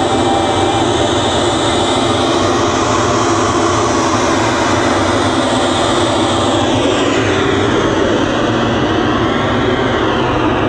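Loud, steady rocket-launch roar, a sound effect accompanying the tower's simulated take-off. In the second half a whooshing sweep falls in pitch.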